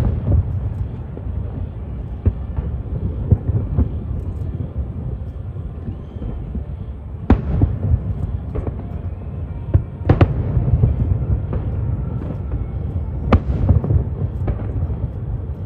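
Fireworks bursting: a dozen or so sharp bangs at uneven intervals, over a continuous low rumble of the display.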